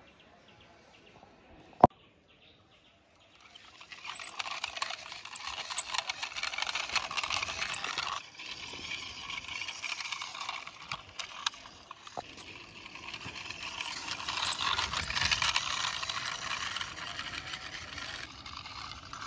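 Wheels of a small toy fire truck rolling as it is pushed by hand along a rough concrete ledge: a gritty rolling rattle full of small ticks that starts a few seconds in and swells and fades. A single sharp click comes shortly before it.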